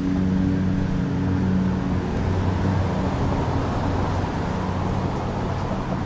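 A car passing on the road: tyre and engine noise swells to its loudest about four seconds in, then eases, over a low steady hum.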